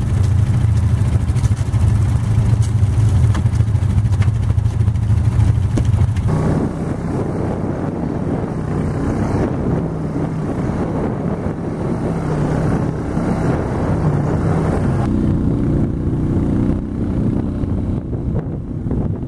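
Small vehicle engine running steadily during a ride. About six seconds in, the sound shifts abruptly to a lower, rougher drone.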